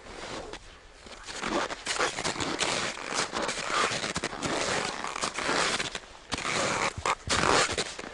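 Crampon-fitted mountaineering boots crunching and scraping step by step in snow.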